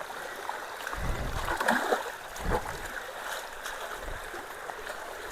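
Steady rush of creek water flowing through a road culvert that a rock and debris are partly blocking, with a few low bumps about one, two and a half and four seconds in.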